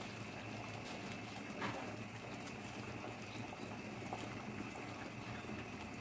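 Thick rice porridge bubbling at a rolling boil in a pot: a steady low bubbling with small pops.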